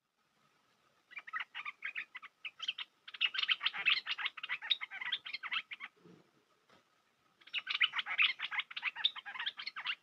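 Bulbul (the merbah lekir of bird trappers) calling in long runs of quick, chattering notes: one from about a second in to six seconds, and another from about seven and a half seconds on.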